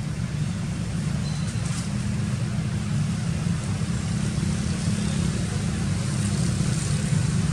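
Steady low rumble of outdoor background noise with a faint hiss above it, unchanging throughout.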